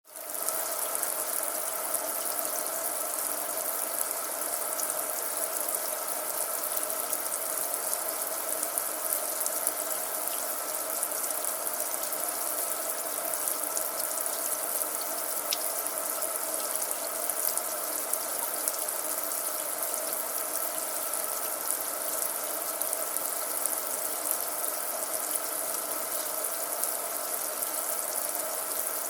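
Kitchen sink tap running, a steady stream of water pouring into the basin.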